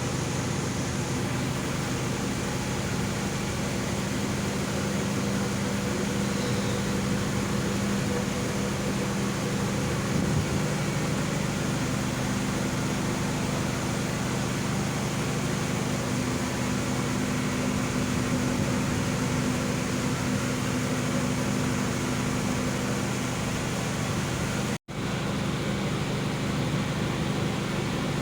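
Steady low drone of a large passenger ship's engines and machinery, several constant hum tones over a broad hiss, breaking off for an instant about 25 seconds in.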